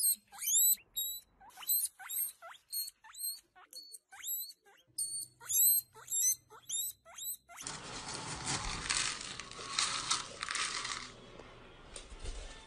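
Guinea pig wheeking: a quick run of short, high-pitched squeaks, two or three a second, each swooping in pitch. After about seven and a half seconds they stop and a rough, scratchy noise takes over.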